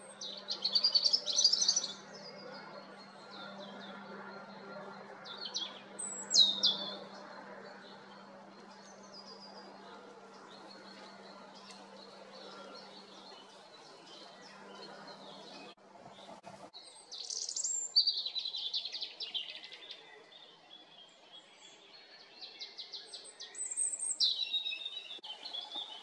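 European robin singing: short, high phrases of rapid notes that slide up and down in pitch, each followed by a pause of several seconds.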